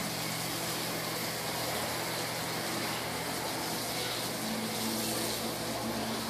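Steady hiss of a garden hose spraying water onto tiled paving, over a steady low motor hum; a higher hum tone joins about four and a half seconds in.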